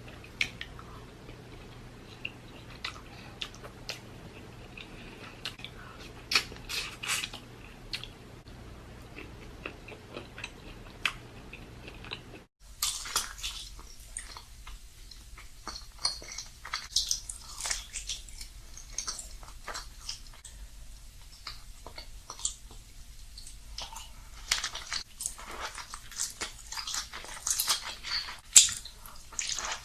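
Close-up eating sounds: chewing and biting, with many short wet smacks and clicks of mouths working on seafood. The sound cuts out for an instant about twelve seconds in.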